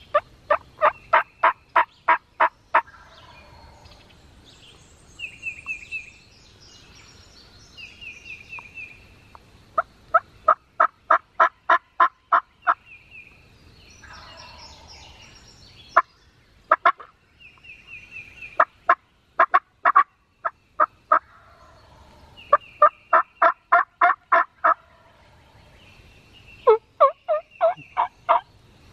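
Turkey yelping: six runs of sharp, evenly spaced yelps, about five a second, each run lasting one to three seconds. Between the runs a songbird gives short, high trills.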